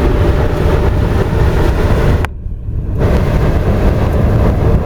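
0.5 t/h (300,000 kcal/h) biomass sawdust burner running: its flame jet and blower make a loud, steady low rush. The noise briefly thins and drops away a little past two seconds in, then comes back as before.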